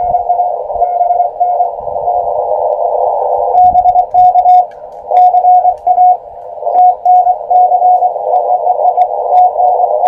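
Morse code (CW) received on an Elecraft KX2 transceiver and played through a small portable speaker: a keyed steady tone of dots and dashes over band hiss narrowed by the receiver's CW filter. The signal gets much louder about three and a half seconds in.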